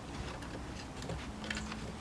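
A few faint clicks and taps of small parts being handled, over a low steady background hum.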